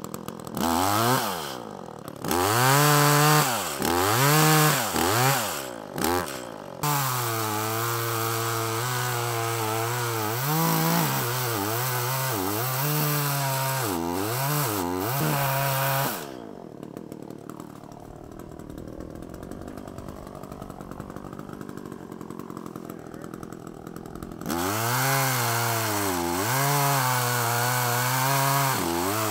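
Echo CS-400 two-stroke chainsaw cutting into a standing tree trunk. Its engine revs up and down several times in the first seconds, then runs steadily under load with small dips in pitch as it bites. It drops much quieter for about eight seconds, then runs at speed again for a second cut near the end.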